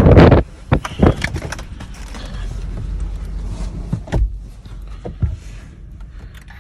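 Blizzard wind buffeting the microphone cuts off sharply about half a second in, as if a car door had shut it out. A few knocks and clicks from inside a car follow over a low steady rumble.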